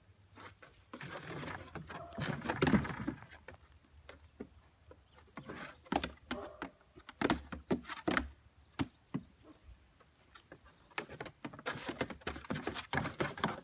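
Young goats' hooves clattering and knocking on plywood platforms as they climb and scramble about, in irregular bursts of sharp taps with quieter gaps between.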